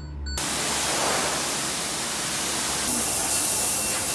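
Car-wash equipment producing a loud, steady rushing hiss that cuts in abruptly after a brief low hum about half a second in, and gets brighter and harsher about three seconds in.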